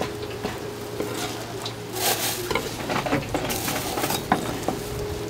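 Food-prep handling of sliced sundae: gloved hands scooping pieces off a wooden board into a plastic-lined bowl, with scattered clicks and knocks and a couple of louder bursts of rustling.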